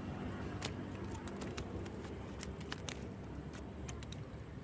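A cast net being handled, with a scatter of short sharp clicks and ticks through the middle, over a low steady rumble.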